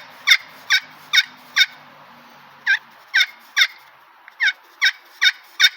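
Slate-surface pot turkey call with a mahogany pot, worked with a striker to make hen yelps: three runs of three or four evenly spaced notes, each note dropping in pitch, with short pauses between runs.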